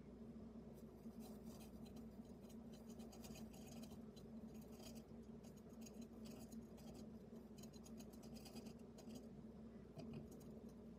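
Faint, rapid scratching clicks in short runs from a hamster moving and working at something inside its wooden hideout, over a steady low hum.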